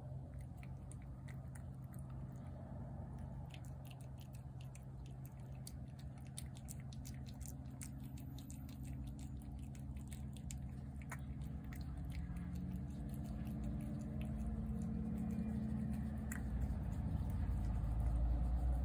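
A cat chewing and licking wet cat food off a plate: a run of small, wet, quick clicks and smacks, thickest in the first half. Underneath is a steady low hum, and a low rumble that grows louder near the end.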